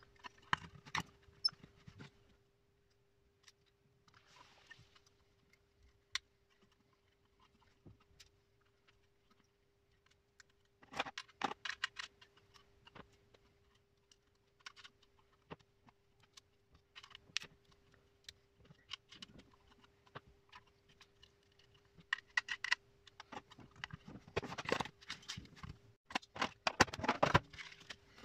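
Small metal screws and washers clicking and clinking as parts are screwed onto a radio mounting board with a screwdriver: scattered clicks, thickest about a third of the way in and again near the end, over a faint steady hum.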